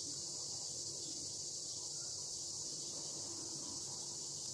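A steady, high-pitched insect chorus, unbroken throughout.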